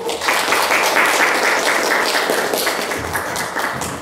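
Audience applauding, starting just after the beginning and easing slightly toward the end.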